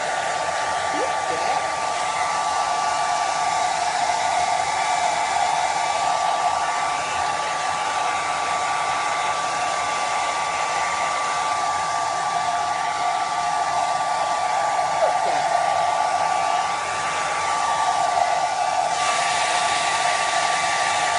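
Handheld hair dryer running steadily, a constant rush of air with a steady hum in it, blowing on a pug's wet coat.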